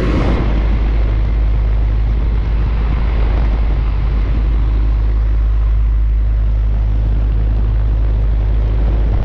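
2010 Trane Odyssey air conditioner running: a steady low hum from the compressor and condenser fan under an even rush of fan air, holding constant throughout.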